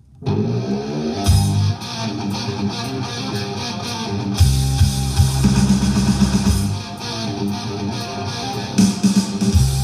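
A 45 rpm vinyl single playing on a Garrard Synchro-Lab turntable: guitar-led music with a strong bass line, starting just after the needle leaves the clicks of the lead-in groove.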